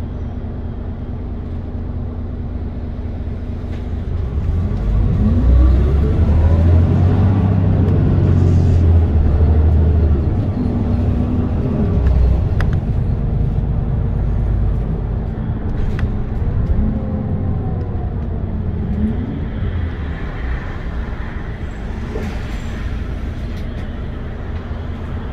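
Mitsubishi Fuso Aerostar city bus's diesel engine heard from inside the bus. It runs with a steady low hum, then about four seconds in its pitch rises and falls through several gear changes as the bus accelerates, before settling into a steadier drone.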